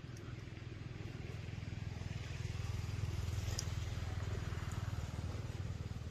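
A motor vehicle's engine running past, a low pulsing rumble that grows louder over the first few seconds and then eases slightly.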